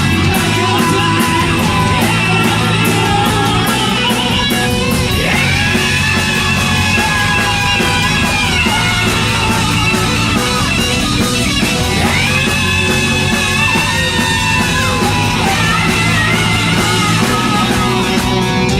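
Hard rock band playing live: electric guitar, bass and drums with steady cymbal hits. Long held lead notes waver in pitch over the top, twice.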